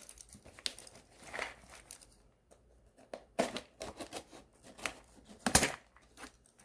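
Parcel packaging being cut and torn open by hand, in short irregular strokes with a brief lull about two seconds in and the loudest stroke near the end.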